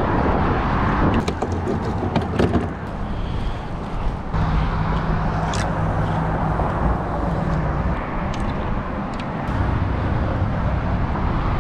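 Steady rumble of road traffic from the highway bridge alongside, with a held low hum through the middle and a few sharp, light clicks.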